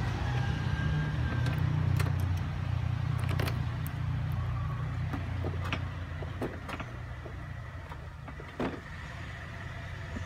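Honda scooter's single-cylinder engine idling steadily, a low hum that eases off somewhat in the last few seconds, with light clicks and a short bump from handling near the end.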